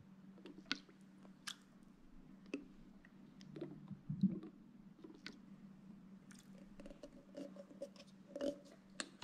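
Faint scattered clicks and light taps from handling a flip-top plastic vanilla extract bottle and a metal measuring spoon over a glass bowl, the loudest tap about four seconds in, over a low steady hum.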